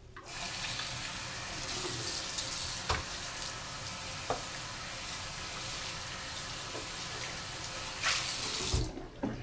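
Bathroom sink tap running, its water splashing over a clear plastic resin vat and a squeegee being rinsed under it, with a few light knocks. The tap shuts off near the end.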